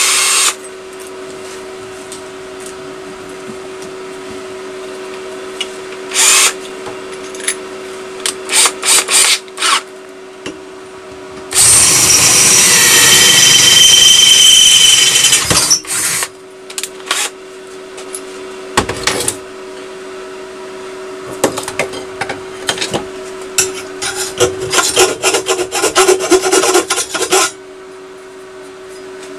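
Electric drill boring a bolt hole through the metal exhaust pipe for about four seconds, starting about twelve seconds in, with a high ringing squeal from the bit. Before and after it come short bursts of scraping hand-tool work over a steady hum.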